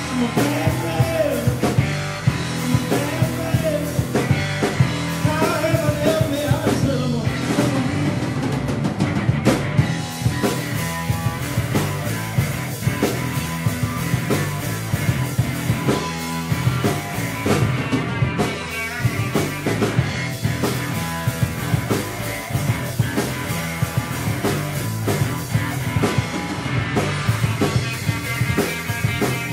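Live rock band playing: electric guitars, bass guitar and drum kit, with drum hits keeping a steady beat throughout.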